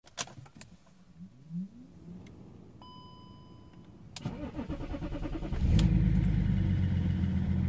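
Car engine being started: a few clicks and a short electronic beep, then the starter cranks for about a second and a half before the engine catches at about five and a half seconds in and settles into a steady idle.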